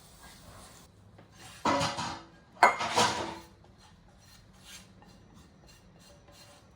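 Kitchenware being handled: two loud scraping, clattering bursts a little under two seconds in and again about a second later, then a few faint clicks.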